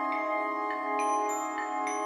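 Concert band music: a held wind chord with a glockenspiel striking a few single ringing notes above it.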